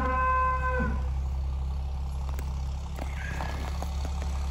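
A Charolais calf, stuck in a round bale feeder, bawls once in the first second; the call rises in pitch and is then held. Under it runs the steady low drone of an idling engine.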